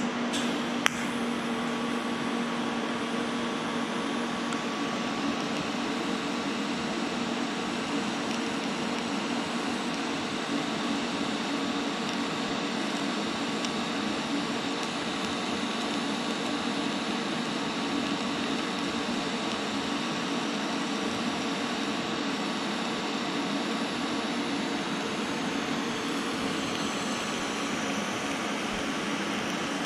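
Lincoln Square Wave TIG welder arc welding steel tubing to a T4 flange: a steady hiss and hum, with one sharp click just under a second in.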